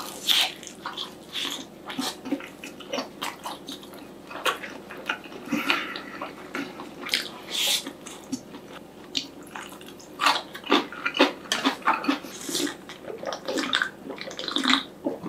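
Close-miked mukbang eating sounds: crunchy bites and wet chewing of a whole block of air-fried Spam, crisp on the outside, with rice eaten in between. There are irregular clicks and smacks throughout, and gulps of a drink from a glass near the end.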